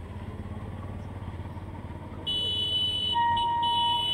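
A vehicle engine runs low, then about two seconds in the level crossing's electronic warning alarm starts as the boom barriers come down: a steady high-pitched tone, joined near the end by a lower beeping tone that pulses on and off.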